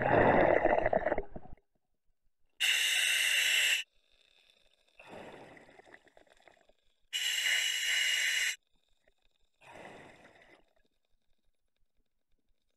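Diver breathing on a scuba regulator inside a full-face mask. Twice, an inhalation gives a steady hiss of about a second and a half, and each is followed by a quieter, fading exhalation, about four and a half seconds per breath.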